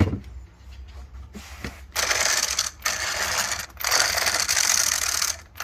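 Drivetrain gears of a 1/5-scale 4WD RC car being turned over by hand, a crunchy, notchy ratcheting in three stretches, the last the longest. The roughness is not from the brakes binding; the owner suspects the gears.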